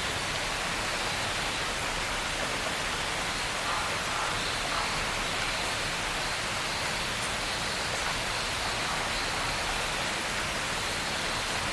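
Steady, even hiss of heavy rain falling, with no thunder.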